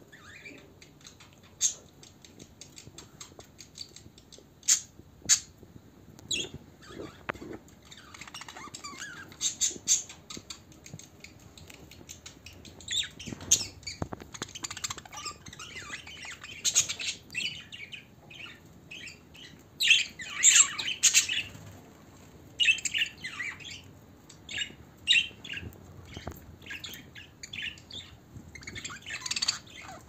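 A flock of budgerigars chattering, with short chirps and squawks coming in scattered bursts. The chatter is loudest and busiest about two-thirds of the way through.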